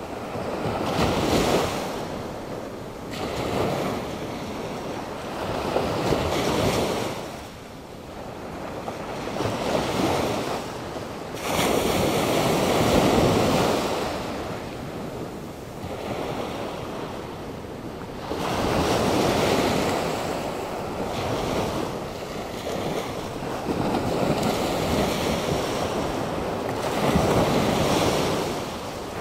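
Atlantic Ocean surf breaking on the shore, driven by a passing hurricane. Waves swell and wash in every three to six seconds, with wind on the microphone.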